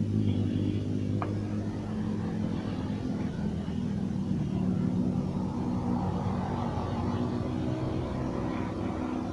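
An engine running steadily, a low even hum, with one short click about a second in.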